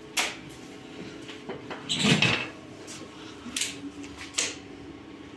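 A few sharp knocks and clicks, with one louder clatter about two seconds in, over a faint steady hum.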